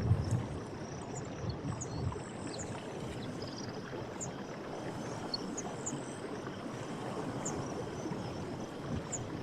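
Steady rush of flowing water, like a stream, swelling briefly at the start, with scattered short high chirps from small animals over it.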